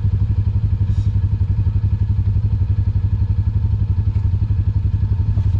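Side-by-side UTV engine running steadily at low trail speed, a deep even drone with a fast regular pulse, heard from inside the vehicle's cab.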